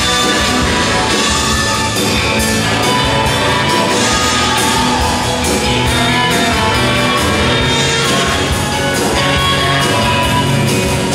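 Live rock band playing steadily and loudly: a saxophone and a harmonica over guitar and drums.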